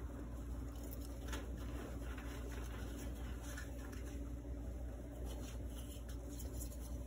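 Hands crumbling and squeezing soft reformed gym chalk in a bowl of loose chalk powder: quiet powdery rustling with a few faint soft crunches, over a steady low hum.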